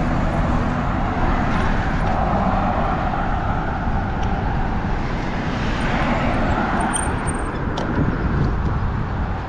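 Steady din of road traffic with wind rumble on the microphone while riding slowly.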